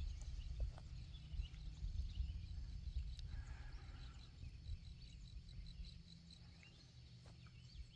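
Quiet woodland ambience: a low rumble of wind on the microphone that eases after about five seconds, with faint scattered high chirps.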